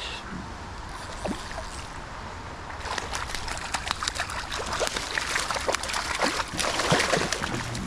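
Hooked brown trout thrashing and splashing at the water's surface as it is played on the line, a quick run of splashes beginning about three seconds in.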